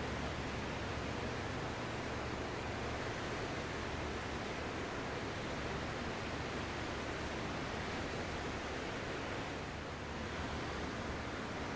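Ocean waves washing onto a shore as a steady, continuous surf hiss, easing slightly about ten seconds in.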